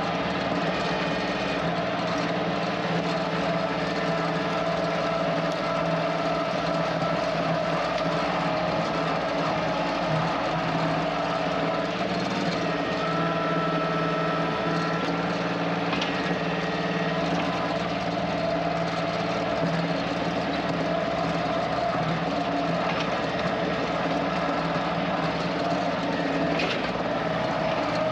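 Kioti CK2610 compact tractor's three-cylinder diesel engine running steadily at an even speed.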